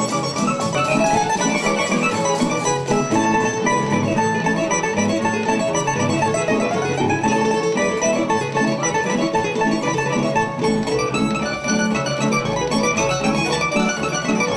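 Tamburica band playing a lively Bunjevac folk dance tune, plucked strings strumming a steady, even beat.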